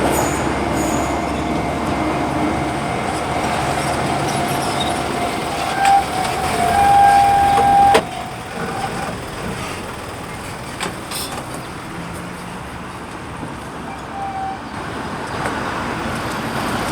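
Road traffic passing, a steady wash of vehicle noise. A thin steady tone, with a brief louder horn-like note near the end, cuts off abruptly about eight seconds in.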